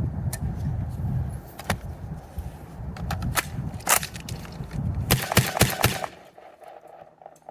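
A series of sharp clicks and clacks, a few spread out and then a quick cluster near the end, from 12-gauge shells being loaded and the Dickinson XXPR shotgun being handled, over a low rumble that stops about six seconds in.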